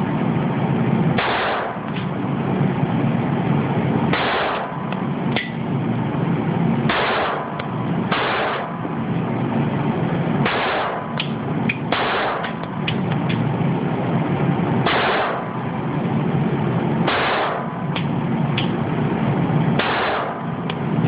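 Springfield 9mm pistol fired shot by shot, about nine loud shots a second or three apart, each with a short echoing tail. Fainter, sharper cracks fall between them.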